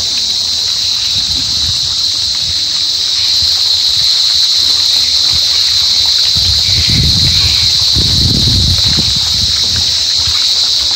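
Cicada singing: a continuous, high-pitched buzz without breaks. A low rumble on the microphone comes in between about six and nine seconds in.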